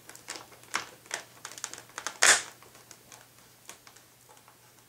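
A hand screwdriver clicking and scraping as it turns the wing-mounting screws into a foam RC plane wing: a quick run of small clicks, one louder scrape a little over two seconds in, then only faint ticks.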